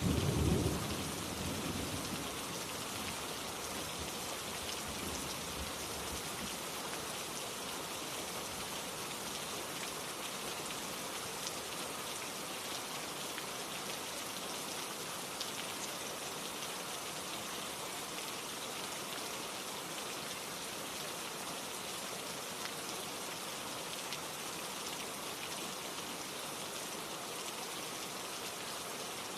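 Steady rain falling, an even hiss of drops hitting surfaces, with a brief louder low rumble in the first second or two.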